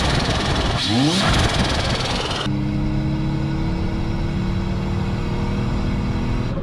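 Turbocharged Toyota 5VZ-FE 3.4-litre V6 revving, twice rising in pitch with a loud rushing sound. About two and a half seconds in it cuts abruptly to the engine's steady running note heard from inside the truck's cab while driving.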